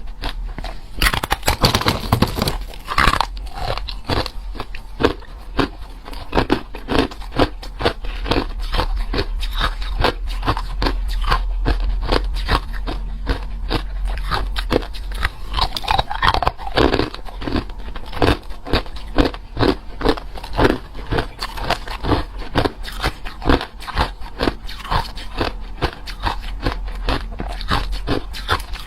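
Close-miked crunching and chewing of ice: a person biting and chewing hard and crushed ice in rapid, irregular crunches, several a second, with a steady low hum underneath.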